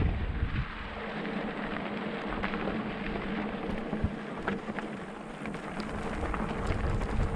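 Mountain bike riding over a gravel track: a steady crunching hiss of tyres on loose stones with scattered clicks and rattles, and wind buffeting the microphone near the start and end.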